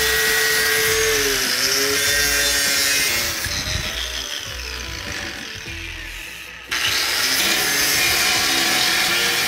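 Angle grinder with a thin cut-off wheel cutting the sheet-steel edge of a griddle, its whine dipping in pitch as the wheel bites. About three seconds in it comes off the metal and the sound falls away. At about seven seconds it cuts again at full loudness.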